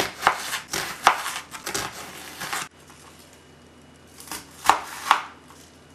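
Chef's knife slicing through a red onion and striking a plastic cutting board: a quick run of cuts for the first two and a half seconds, then two sharp chops near the end.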